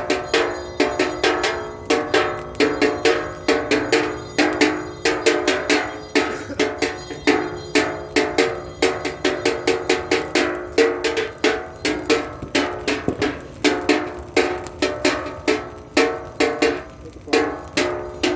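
Rapid, uneven percussive strikes, several a second, each with a short metallic ringing tone, like objects being beaten for noise.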